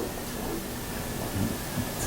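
Room tone: a steady hiss with a few faint, soft sounds and no speech.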